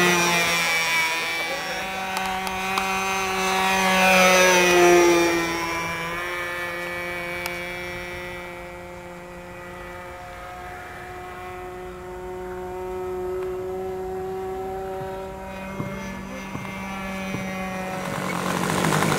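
Radio-controlled model airplane flying, its motor and propeller giving a steady pitched hum that is loudest about five seconds in, fades, and swells a little again later as the plane circles.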